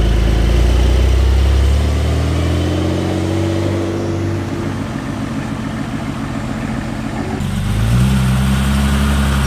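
Car engines at low revs as cars drive slowly past: a Porsche 911's engine note rises as it pulls away about two seconds in. Near the end a classic BMW 6 Series coupé's engine takes over with a steady, low note.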